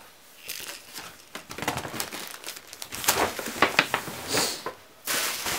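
Paper gift bags being handled, crinkling and rustling in irregular crackles, loudest about three to four seconds in, with a steadier rustle starting near the end.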